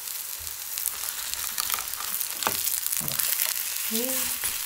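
Shredded aged-pumpkin pancakes sizzling steadily in hot oil in a pan, with a wooden spatula pressing down on them and giving a couple of short scrapes or taps.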